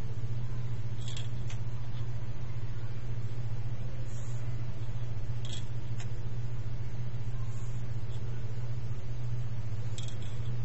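Steady low hum, with a few faint light clicks of a metal ruler and a marker being set down and moved on paper.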